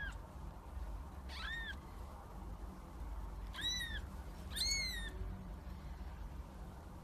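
A cat meowing three times, short calls that rise and fall in pitch; the third is the loudest.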